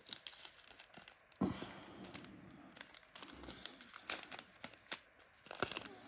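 A small plastic bag crinkling as it is handled, in short irregular bursts with scattered light clicks.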